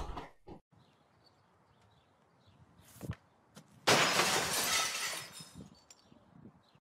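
A sharp crack as a hockey stick strikes a shot, then under a second later a pane of glass shatters, the breaking glass crashing and tinkling away over about a second and a half.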